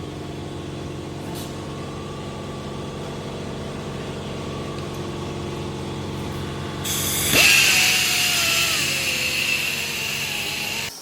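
Electric rotary buffer running with a fine finishing pad, polishing car paint. About seven seconds in it turns suddenly louder, with a hissing edge and a falling whine, then cuts off abruptly near the end.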